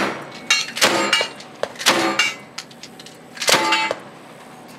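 About five gunshots in the first three and a half seconds, fired at steel plate targets; after several of the shots the hit steel rings with a clanging tone. The last shot, the longest ring, comes about three and a half seconds in.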